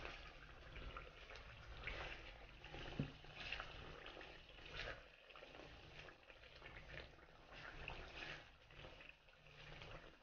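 Faint sizzling of mawa (khoya) roasting in melted ghee in a wok, with a few soft scrapes of a silicone spatula stirring it.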